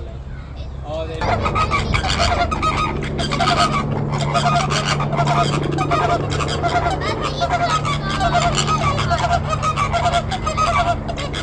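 A flock of flamingos honking together in a dense, agitated chorus of short repeated calls, which starts up about a second in. A low steady drone runs underneath.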